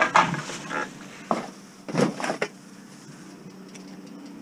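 Knocking and rattling as a long-handled axe is shoved into a car crammed with plastic bags and glass bottles: a burst of clatter at the start and another about two seconds in, then it goes quieter.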